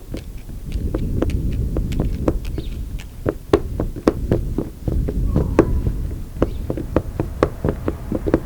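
Rapid, irregular clicks and taps, several a second, over a steady low rumble.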